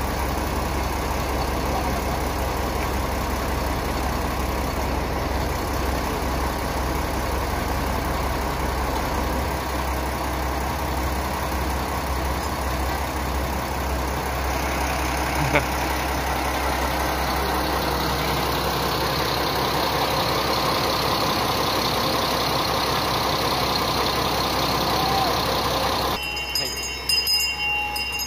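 Diesel railcar engine idling steadily with a low hum while the train stands at the platform. About two seconds before the end the hum drops away and a few light high tones are heard.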